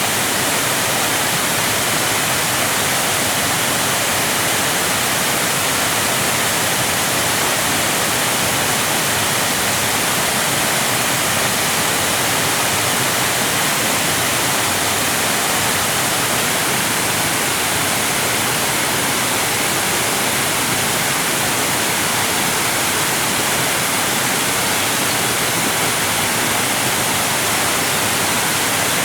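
Waterfall: water cascading in a steady, even rush that does not change.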